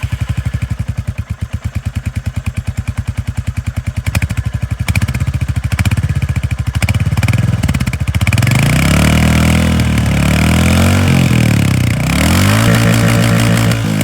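Royal Enfield Hunter 350's single-cylinder engine on its stock exhaust, just started, idling with an even pulsing thump. From about eight seconds in it is revved several times, the revs rising and falling.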